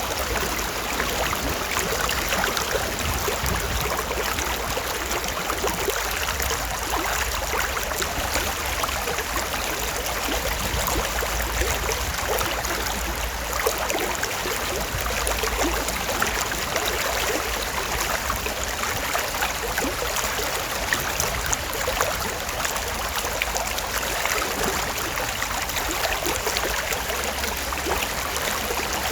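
Stream water flowing steadily, an even rushing with trickling, and a low rumble underneath.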